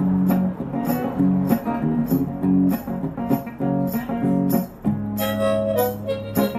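Acoustic guitar strummed in a steady rhythm with changing chords; about five seconds in a chord is left ringing before the strumming starts again.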